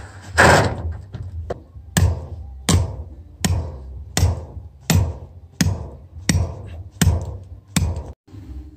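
Sledgehammer driving a short steel concrete-work rod into frozen ground as a temporary ground rod: about nine steady blows, each a sharp strike with a short ring, a little under a second apart. Before the blows, near the start, a brief rush of rustling noise.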